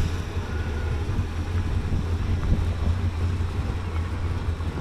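Old demolition derby car's engine running with a steady low rumble, kept going only on gas poured down the carburetor.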